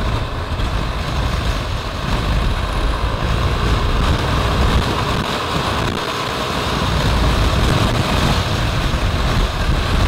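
Wind buffeting the microphone of a moving Yamaha NMAX scooter, a steady, heavy rush over the scooter's engine and road noise.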